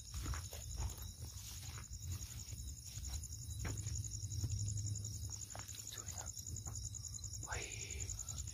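Crickets chirping in a steady, high, finely pulsing trill, with footsteps crunching and brushing through dry grass and scrub.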